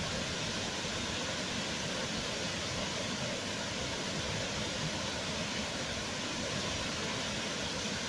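Wide waterfall in full flow: water pouring over the ledge and crashing into the pool below, a steady, even rushing.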